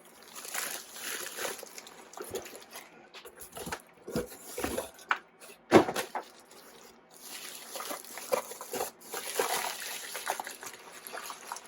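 Handling noises: irregular rustling and scraping with a few sharp clicks and knocks, the loudest knock about six seconds in.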